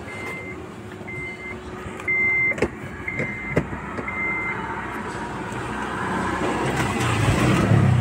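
Car's dashboard warning chime beeping five times, about once a second, with the ignition on. Then a rising rush near the end as the Honda City's diesel engine is started.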